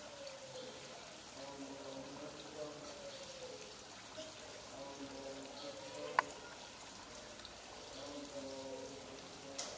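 An imam's voice chanting a melodic Arabic recitation, faint and drawn out in long held, gliding notes, as the standing congregation prays. A single sharp click about six seconds in.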